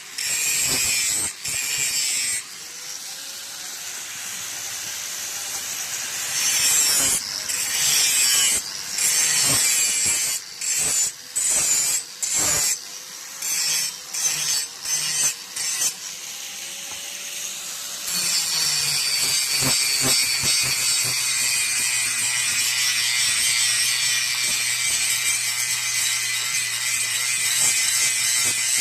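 Steel knife blade being sharpened: harsh, hissing metal grinding that comes in short strokes, starting and stopping again and again. About two-thirds through it turns into one steady grind with a low hum beneath it.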